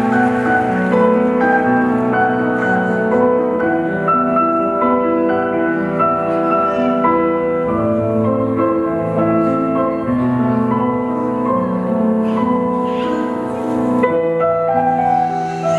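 Instrumental music with held, melodic notes, playing without a break, as accompaniment to a ballet dance.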